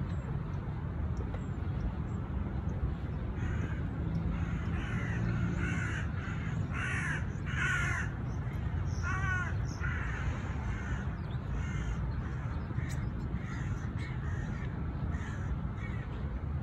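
Crows cawing repeatedly, a string of harsh calls from about three seconds in until near the end, loudest around seven to eight seconds in, over a steady low background rumble.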